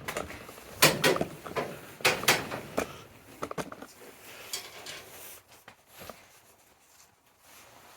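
Knocks, clatter and rattles from handling greenhouse frame parts and hand tools during assembly. The sharpest strikes come about one and two seconds in, followed by lighter scattered clicks.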